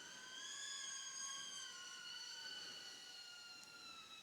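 BetaFPV Pavo20 Pro II ducted cinewhoop drone in flight: a faint, high motor-and-propeller whine that rises slightly in pitch in the first second, then slowly falls.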